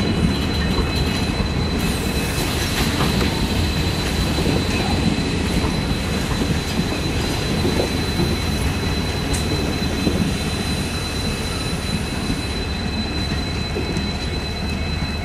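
Passenger train coaches rolling past on the rails: a steady, uneven low rumble of wheels on track, with a thin, steady high-pitched tone held over it. The sound eases slightly near the end as the last coach goes by.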